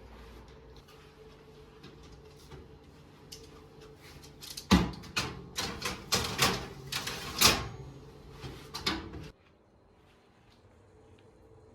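Kitchen clatter: a run of sharp knocks and clacks of things being handled and set down, like cupboard doors and dishware, lasting about four seconds and cutting off suddenly.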